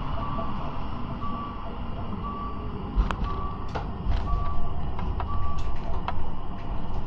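Electronic warning beeps, six short steady tones about one a second, over the low rumble of a tram. Several sharp knocks come in the second half.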